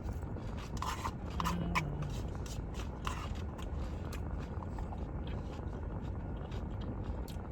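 Close-up eating of salad: crunchy bites and chewing, with scrapes and clicks of the food container and utensil, over a steady low rumble.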